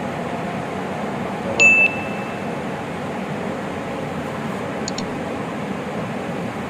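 A single short electronic beep from the welding habitat's pressure and temperature alarm panel, about a second and a half in, over steady fan noise from the habitat's air system. Faint double clicks follow near the end.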